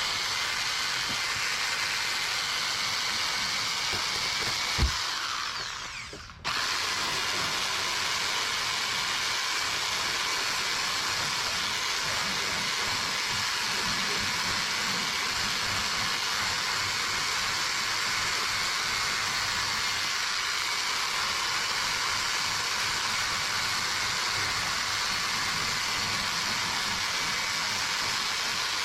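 A power tool running steadily with a high-pitched noise. About five seconds in it winds down over a second, then starts again suddenly and keeps running.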